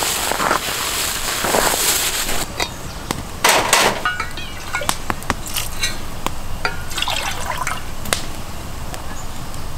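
Wood fire in a small brazier hissing and crackling, with scattered sharp pops; the firewood is damp and water is seeping out of it as it burns. Near the end, a drink is poured from a thermos into a mug.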